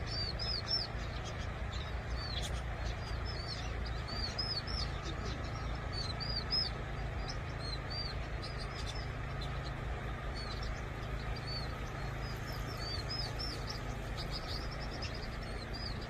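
Vinous-throated parrotbills calling: runs of short, high, arched chirps repeated in quick series, with a brief lull partway through, over a low steady rumble.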